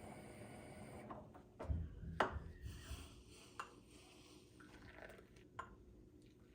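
Household items handled in a kitchen: a few sharp clicks and knocks, the loudest about two seconds in, with some low thuds and soft rubbing between.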